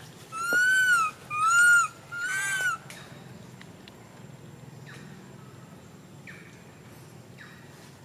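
A young macaque crying: three high, arched coo calls, each rising then falling and about half a second long, one after another in the first three seconds.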